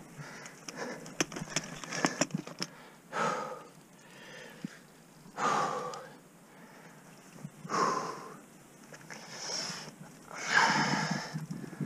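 An ice climber breathing hard: about five loud, heavy breaths roughly two seconds apart, the last the loudest. In the first couple of seconds there are a few light clicks and taps.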